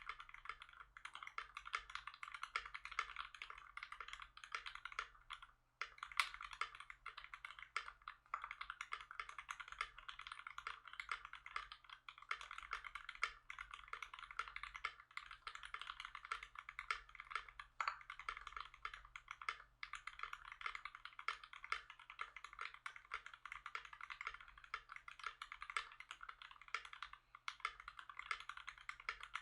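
Continuous typing on a custom KBD67 MKII mechanical keyboard with a polycarbonate case, brass plate, GMK keycaps and Tangerine linear switches lubed with Krytox 205g0. The keystrokes come in a fast, steady patter, with a brief pause about six seconds in.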